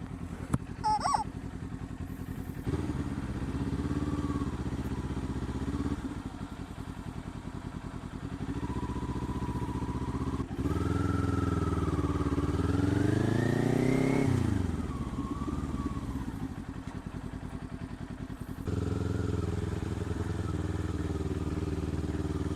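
Motorcycle engine running under the rider. Its pitch climbs steadily from about halfway through and then drops back sharply a few seconds later, as he accelerates and then eases off, before settling to a steady lower note.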